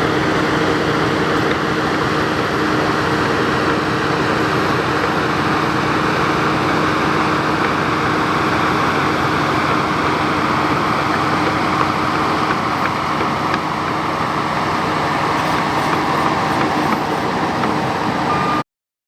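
Shantui DH17C2 LGP bulldozer running steadily, its diesel engine noise mixed with the machine's working noise. It cuts off suddenly near the end.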